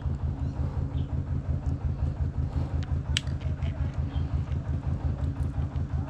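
An engine running steadily with an even, pulsing low drone, along with a few faint clicks.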